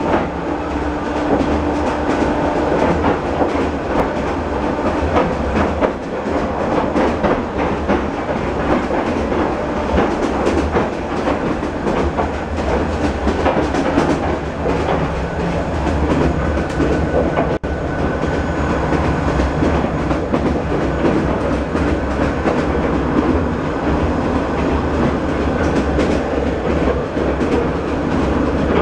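Train in Vietnam running steadily along the rails, a continuous rumble and rattle with scattered clicks from the wheels and carriages.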